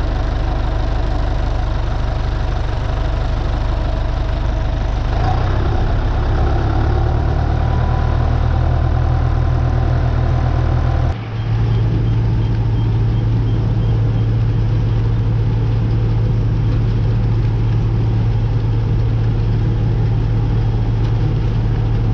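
Tractor engine running steadily. About eleven seconds in the sound changes abruptly, with a brief dip, and a steady low hum carries on.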